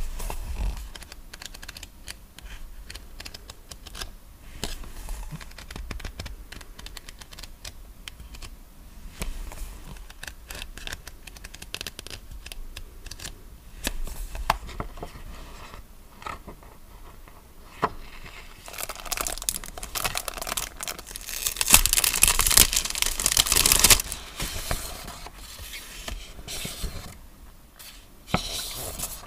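Paper rustling, page flicks and small taps as a pad of journaling paper is flipped through and its sheets are handled. A denser, louder crinkling from about 19 to 24 seconds in.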